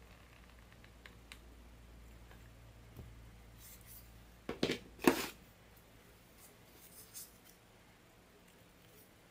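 Quiet tabletop handling of craft items. There are a few light ticks, then two or three sharper knocks about halfway through, with a faint low hum that stops about halfway.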